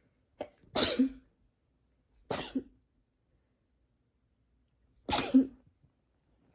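A person sneezing three times, induced sneezes, each a loud, sudden, short burst. There is a brief catch of breath just before the first, about half a second in; the second sneeze follows about a second and a half later, and the third about three seconds after that.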